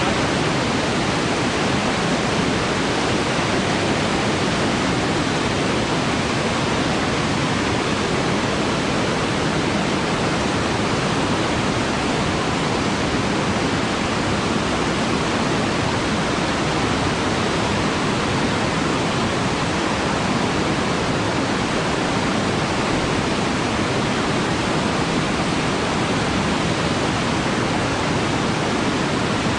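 Steady rush of a swollen, silt-laden mountain river in flood, an even wash of water noise that does not change.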